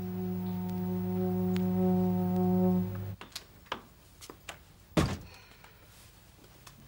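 A sustained musical drone chord on a low note swells slightly and cuts off abruptly about three seconds in. A few light clicks and knocks follow, then a single heavy thunk about two seconds later.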